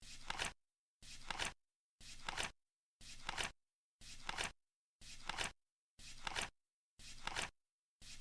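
Flip clock flipping over once a second: each flip is a short rustle ending in a sharp click as the flap lands, with silence between flips.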